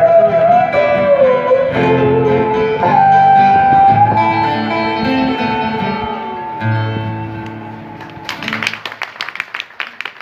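Traditional Vietnamese band playing plucked string instruments, a melody of sliding, bending notes over lower notes, closing on a final held note about eight seconds in. Audience clapping follows to the end.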